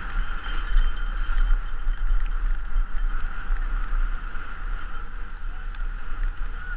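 A bicycle speeding downhill on packed snow, heard from a helmet-mounted GoPro Hero3: steady low wind buffeting and rumble with an even hiss from the tyres and air, and a few light clicks and knocks as the bike rattles over the bumps.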